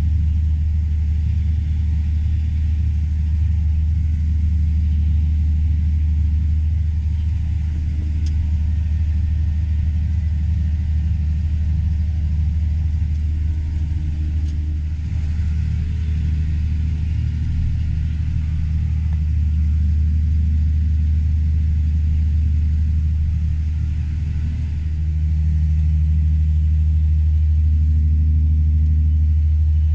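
Combine harvester's engine running with a steady low drone while unloading corn. About 25 seconds in, it gets slightly louder and a new steady hum joins in.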